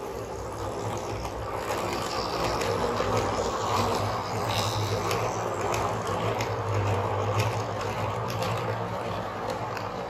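HO-scale model train running past, its electric motor humming and the coach wheels clicking over the rail joints. It grows louder as the coaches pass close by in the middle, then fades a little as the last coach goes past.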